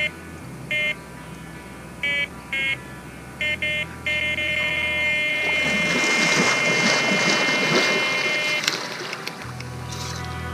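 Electronic carp bite alarm on a rod: a few irregular beeps as a fish starts taking line, then one unbroken tone for about four and a half seconds during a full run. Water splashes in the middle as the angler wades out to the rod.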